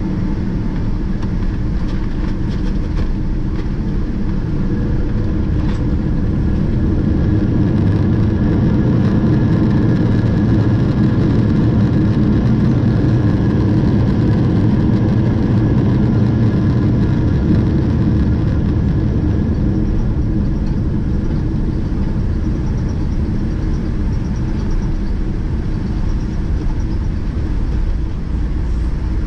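Cabin noise of a Boeing 777-200ER rolling on the ground after landing: a steady low rumble of engines and wheels, swelling a little about a third of the way in and easing off toward the end.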